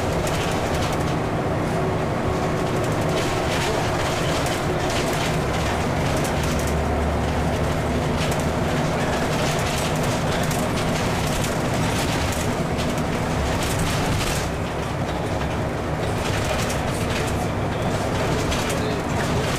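Scania N94UD bus under way, heard from inside the passenger saloon: the engine and driveline run with a steady low drone. The body and fittings keep up an irregular rattling and clattering.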